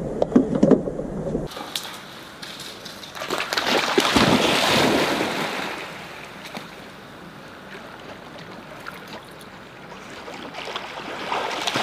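A few metal clicks of a key working a bike lock. Then a steady rush of wind and river water at the shore, swelling loudest for a couple of seconds and easing to a softer hiss, while a dog swims in the river.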